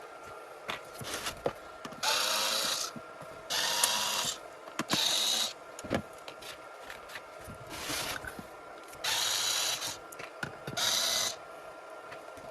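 Electric screwdriver whirring in several short bursts, each under a second, as it backs tight screws out of a battery's aluminium lid, with small clicks of handling between bursts.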